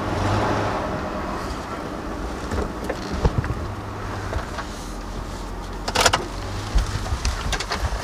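Tow truck's engine running steadily, heard from inside the cab, with a few light clicks and one short, sharp noise about six seconds in.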